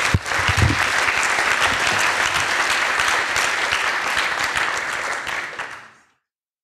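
Audience applauding: dense, steady clapping that cuts off quickly about six seconds in.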